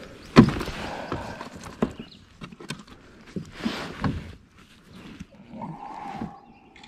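Irregular knocks and thumps of a bass being handled on a measuring board in a kayak, the loudest about half a second in.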